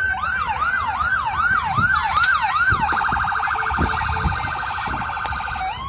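Electronic siren cycling through its tones: a fast yelp of about two and a half sweeps a second, then, about three seconds in, a much faster piercing warble that breaks off near the end into the start of a slow rising wail.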